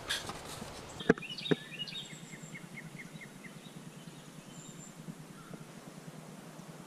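Two sharp clicks about a second in, then a bird calling a quick run of about seven short, evenly spaced chirps, with a few fainter high peeps over steady woodland background noise.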